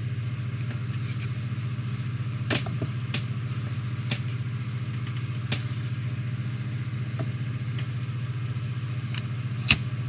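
A steady low hum runs throughout, under five sharp plastic clicks and taps from handling a Comlock prop replica. The loudest click comes near the end.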